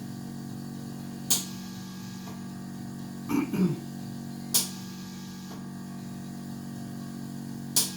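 Vacuum massage: a steady low machine hum with three sharp pops about three seconds apart, as the suction cup is drawn upward over oiled skin, and a brief squelch midway.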